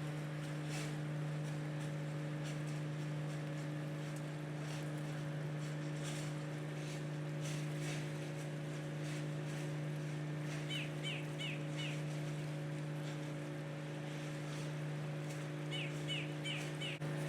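Steady low machinery hum of a large cruise ship berthing. Two quick runs of about four bird chirps come through it, one about two-thirds of the way in and one near the end.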